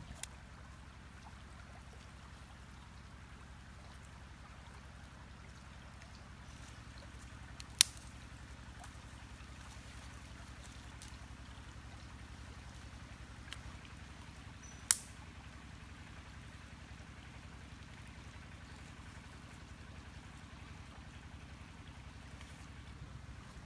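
Shallow stream trickling steadily over its bed, with two sharp clicks about eight and fifteen seconds in.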